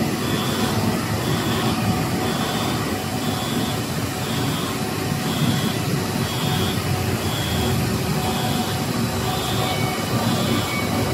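Automatic three-layer cast stretch film line (XHD-65/90/65 extruders and winder) running in production: a steady mechanical drone, with a high tone that comes and goes about once a second.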